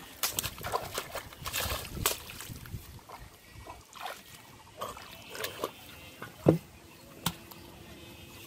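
Irregular splashes and sloshes of shallow paddy water as a large catfish thrashes in a person's hands and bare feet wade through it. A sharper knock about six and a half seconds in is the loudest sound.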